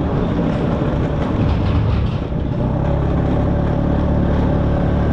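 LML NV scooter's two-stroke engine running while riding a rough dirt road, with heavy wind and road noise on the microphone. About two and a half seconds in, the engine note settles and steadies.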